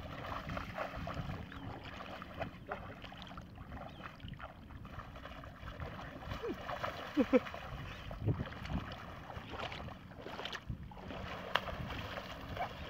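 Shallow water splashing and sloshing as a woven bamboo basket trap is swept and plunged through a flooded rice paddy, with wading legs churning the water in irregular splashes.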